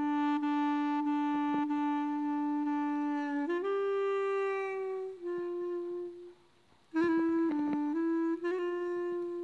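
Background music: a slow solo melody of long held notes, with a brief silence about two-thirds of the way through.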